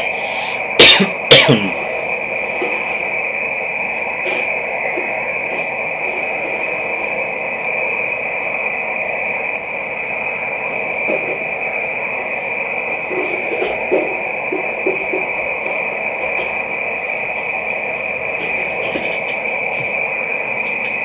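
Hiss of an HF transceiver receiving single-sideband on the 12 m band between transmissions, with a steady high whistle running through it. About a second in, two loud crackles with a falling pitch.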